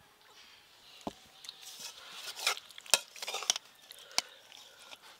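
Steel serving spoon scraping and clinking against a stainless steel bowl as curry is ladled out, with a few sharp clinks, the loudest about three seconds in.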